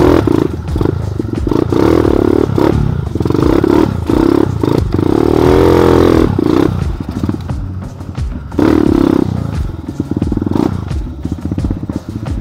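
Trail motorcycle engine revving up and down on a rough off-road track, with scattered knocks and clatter.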